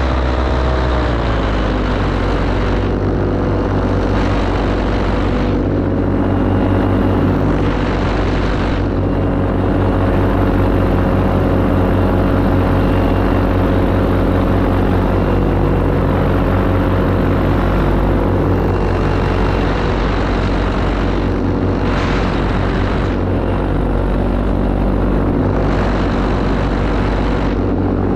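Parajet Maverick paramotor's Vittorazi Atom 80 single-cylinder two-stroke engine driving its propeller in flight, running steadily. The engine speed drops about a second in, holds, and rises again near the end.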